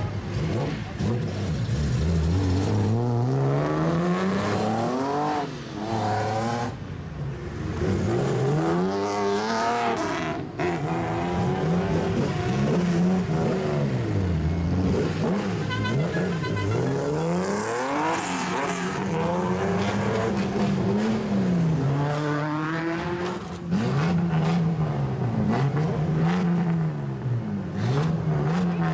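Straight-piped exhausts of old Japanese cars revving as they pull away one after another, the engine note rising and falling over and over with repeated blips of the throttle.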